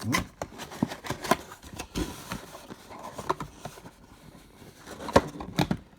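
A cardboard trading-card box being opened and handled. It gives irregular taps, scrapes and rustles as the contents are pulled out.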